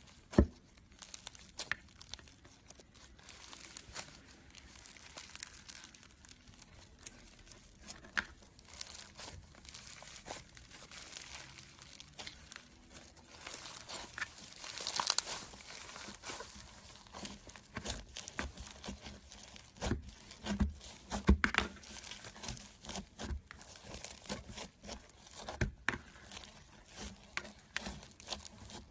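Slime being worked by hand, giving a dense run of small crackles and pops, with a cluster of louder snaps about two-thirds of the way through.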